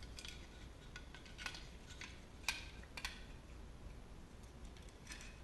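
A handful of faint, scattered clicks and taps of small metal and plastic parts being handled: an airsoft gearbox and lower receiver being picked up and turned in the hands. The two sharpest clicks come a little past the middle.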